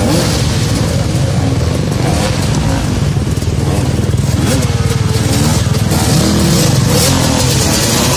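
Several enduro dirt-bike engines running at once, revving up and down as the bikes are worked over logs in mud, their pitch rising and falling.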